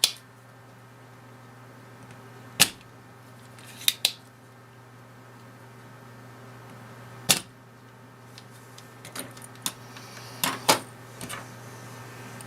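Scattered small clicks and taps from hand tools and parts being handled on a workbench during soldering, about nine in all and irregularly spaced, over a steady low hum.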